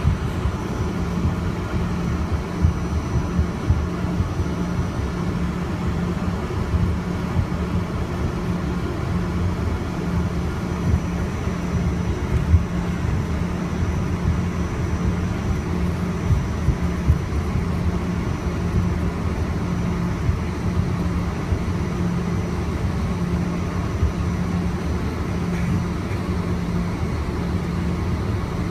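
Aircraft engines and taxi rumble heard from inside the passenger cabin. The rumble is steady, with a low hum and a faint high whine, and a few small knocks.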